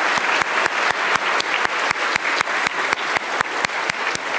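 Congregation applauding, a dense patter of many hands, with one person's claps standing out close to the microphone at about four a second.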